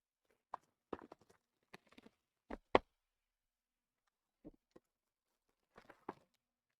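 Trading card packs and cards handled on a table: a scatter of short taps and knocks, loudest a little under three seconds in, with another small cluster near the end.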